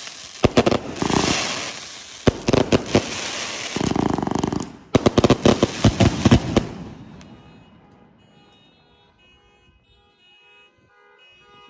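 341-shot consumer fireworks cake firing its last volleys: rapid strings of sharp bangs and crackling with hissing launches, stopping about seven seconds in.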